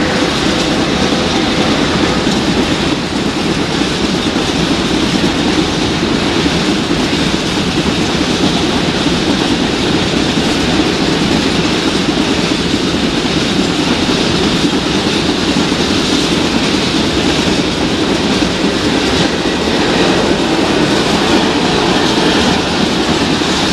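Loaded coal hopper wagons of a long freight train rolling past, a steady rumble and clatter of wheels on the rails, with a faint high wheel squeal running through it.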